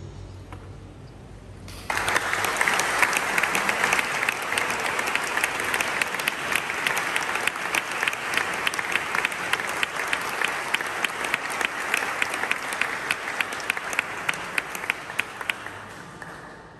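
Audience applauding after a choir performance. The applause starts suddenly about two seconds in, with sharp individual claps standing out, and dies away near the end.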